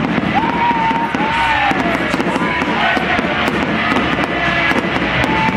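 Aerial firework shells bursting overhead, with a dense crackling from glittering crackle stars, over music playing in the background.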